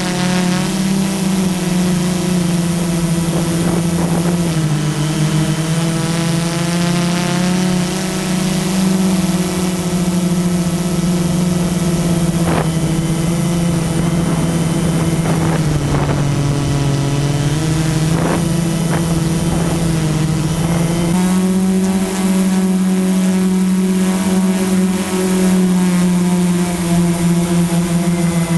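Multirotor drone's motors and propellers humming steadily, heard from the camera on the aircraft, the pitch shifting up and down as the motors change speed, with a step up about two-thirds of the way through.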